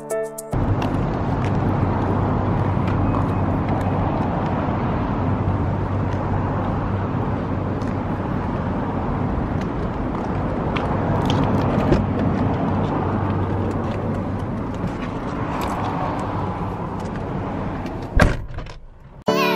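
Outdoor vehicle noise with a steady low engine hum and a few faint clicks, then a car door shutting with one sharp knock about eighteen seconds in.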